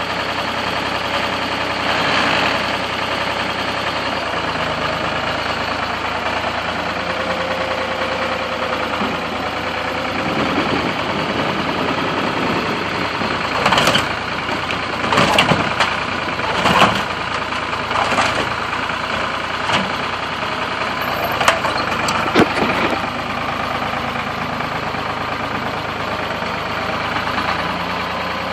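A machine's engine runs steadily throughout. In the middle comes a series of sharp crunching impacts as the motor home's body is broken apart.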